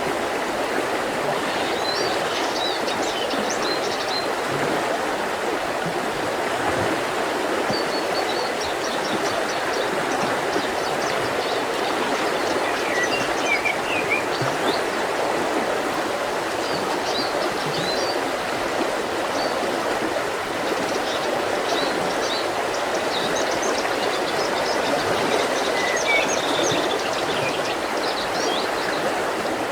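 Mountain river rushing steadily over rocks, with small birds chirping and singing short phrases above it throughout.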